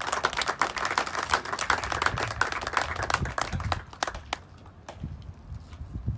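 A small crowd clapping, a dense patter of hand claps that thins out and stops about four seconds in.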